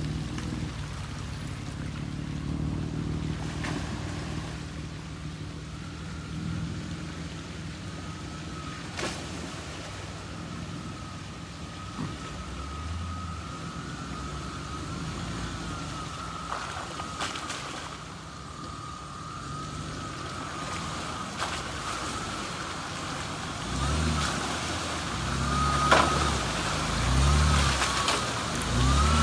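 Toyota FJ Cruiser's 4.0-litre V6 engine running at low speed as the truck crawls through a muddy water hole, with a few sharp knocks from the tyres and underside. About three-quarters of the way through the engine gets louder, revving in short pulses as the truck climbs out of the hole close by.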